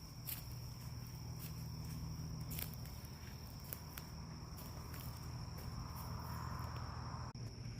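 A steady high-pitched insect trill, with irregular crunching footsteps on dry ground. Near the end a short rustle cuts off suddenly.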